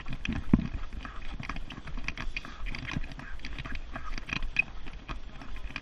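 Running footsteps and the rattle of a pushed cart on a path: quick, irregular knocks and clatter over a low rumble.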